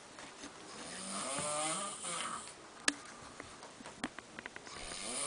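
A person snoring: one long drawn-in snore with a wavering pitch about a second in, and another snore building near the end. A single sharp click about three seconds in, and a few faint ticks shortly after four seconds.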